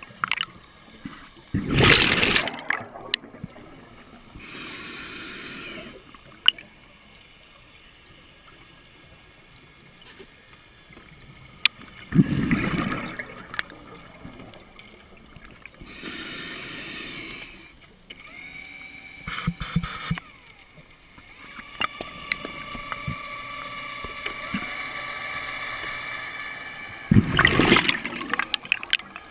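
Underwater recording of a scuba diver breathing through a regulator. There are three loud gushes of exhaled bubbles about ten seconds apart, with shorter hissing inhalations between them. About two thirds of the way through, a steady high motor whine comes in.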